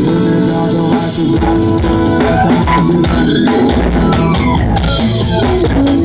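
Loud music with drums and a strong bass line played through a home sound setup: a mini system's pair of speakers combined with a separate speaker box driven by loose amplifier modules.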